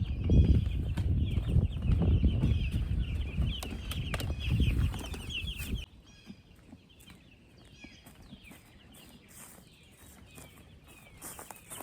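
Young meat chickens peeping and clucking in a crate, the high chirps coming thick and fast. A loud low rumble runs under them for about the first six seconds, then stops, and fainter chirps go on.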